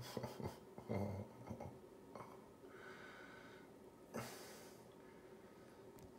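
A man breathing hard through the sting of 17.5% hydrogen peroxide on an open wound. A few short grunts come in the first two seconds, then sharp breaths are let out, the strongest a little after four seconds.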